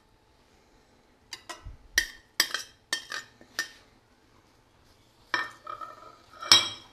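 Metal knife clinking against glass dishes: about six sharp, short-ringing taps. Near the end a glass plate clatters and rings as it is set down on a marble counter, the loudest sound.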